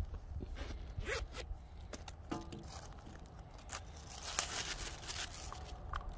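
Zipper of a zip-around wallet being pulled open around its edge, in scratchy runs: a short one about a second in and a longer one about four seconds in.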